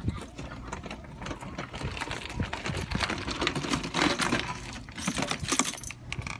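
Mitsubishi Lancer Evolution X's turbocharged four-cylinder running through a valved titanium muffler: a low rumble with a rapid, irregular chattering clatter from the exhaust that grows louder about two seconds in and peaks near the end.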